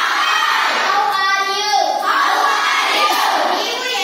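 A group of children singing together in unison, loud and continuous.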